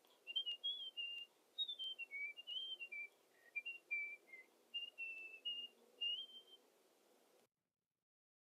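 A tune whistled in short held notes stepping up and down in pitch, with a few faint clicks. It stops about six and a half seconds in.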